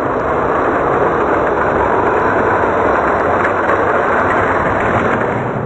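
Hot Wheels die-cast toy cars rolling down an orange plastic race track: a steady rolling rumble.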